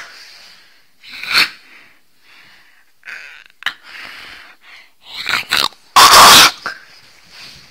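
Small shaggy dog snorting and sneezing in short huffs right at the microphone during rough play. A very loud distorted burst about six seconds in.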